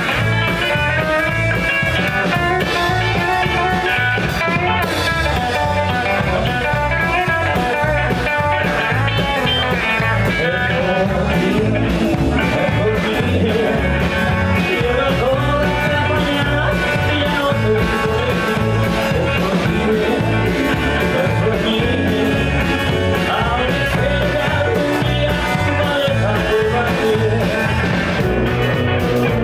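Live rock and roll band playing: electric guitar, keyboard and drums with a steady beat, and a man singing.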